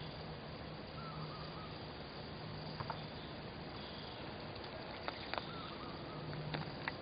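Outdoor ambience: a steady hiss with a low hum that comes and goes, faint insect or bird chirps, and a few sharp clicks in the second half.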